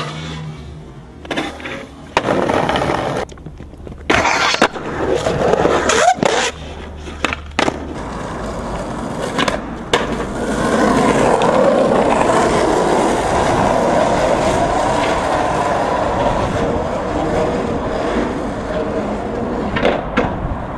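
Skateboard sounds: sharp knocks and clatter of the board and wheels hitting the ground in the first half, then a long stretch of urethane wheels rolling over rough, cracked asphalt.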